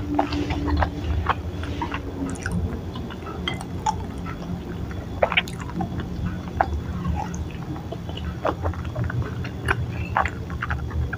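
Close-miked eating sounds: chewing on chewy tapioca balls (bakso aci) with wet mouth sounds, and scattered small clicks and scrapes of a wooden spoon and fork against a ceramic bowl of chili broth.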